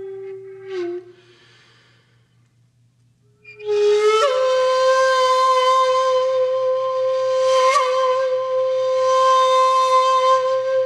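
Background music: a solo breathy wind instrument, flute-like. A held note dips in pitch and fades out about a second in; after a short pause a new, higher note slides in and is held steadily to the end.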